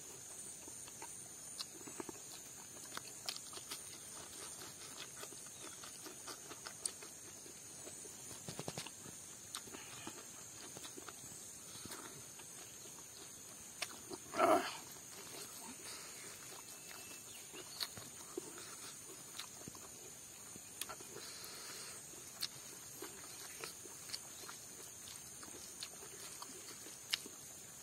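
Close-miked eating sounds: soft chewing, lip smacks and small wet clicks as food is eaten by hand, with one louder mouth sound about halfway through, over a steady high hiss.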